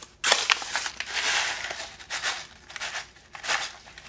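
Manila paper envelope crinkling and tearing as it is opened by hand: a run of irregular rustles and sharp crackles.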